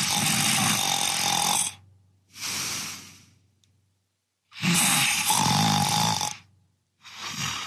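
A man snoring in his sleep: two loud, rasping snores about two seconds each, each followed by a softer breath out. The snoring persists even with an anti-snoring mouthpiece, which has not cured it.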